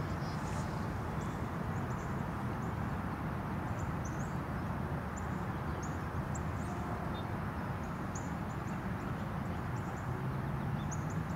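Outdoor ambience: a steady low rumble with many short, very high chip notes from small birds scattered through it. Near the end a low hum rises slightly in pitch.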